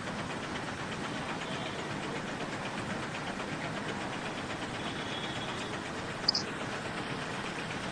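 Steady running noise of a vehicle heard from inside its cabin, with one brief high chirp about six seconds in.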